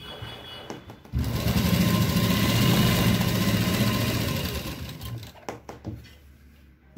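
Sewing machine stitching a run of understitching around a suit's neckline: it starts about a second in, runs steadily for about three seconds, then slows and stops, followed by a few light clicks.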